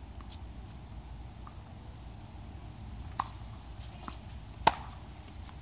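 Tennis ball struck by rackets and bouncing during a rally: a few sharp pops, the loudest about a second before the end, over a steady high drone of insects.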